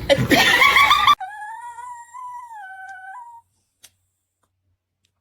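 A dog vocalising: a short loud yelping cry over noise, then a long high-pitched dog cry held for about two seconds with small wavers in pitch, ending a little past the midpoint.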